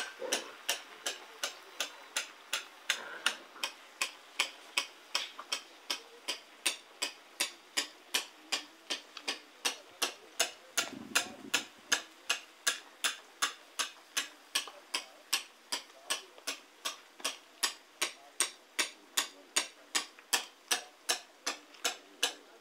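A steady, even ticking, about two to three sharp ticks a second.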